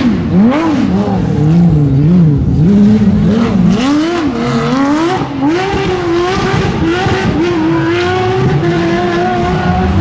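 Porsche 997 GT3 rally car's flat-six engine revving hard, its pitch climbing and dropping several times with throttle and gear changes over the first five seconds, then holding one long, slowly rising note under full acceleration.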